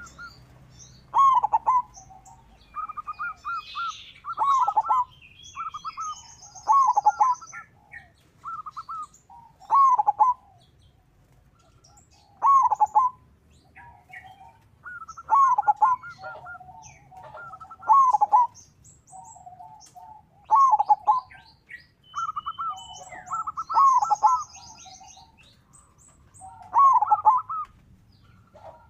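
Zebra dove (perkutut) cooing over and over: each phrase a quick run of short notes followed by falling coos, repeated about every two to three seconds. Fainter high chirps and trills sound in between.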